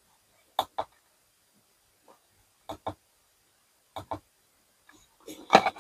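Three pairs of quick clicks about two seconds apart: the power bank's push button pressed twice each time. A short rustle of handling near the end.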